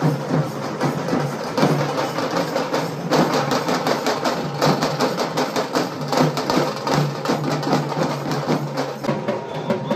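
Fast, steady drumming: percussion music with many strikes a second.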